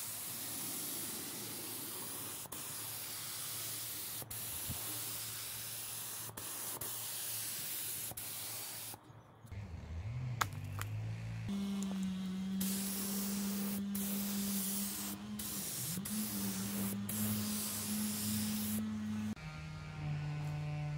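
Compressed-air spray gun hissing as it sprays paint onto steel wheelbarrow parts, broken by several short pauses. About halfway through, a steady low hum comes in under the hiss.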